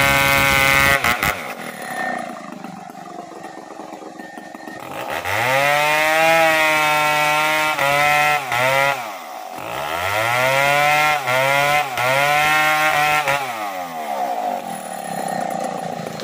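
Two-stroke gasoline chainsaw running fast just after starting, then dropping to idle after about a second. It is revved up twice, a few seconds each time, with short throttle dips, and settles back to idle near the end.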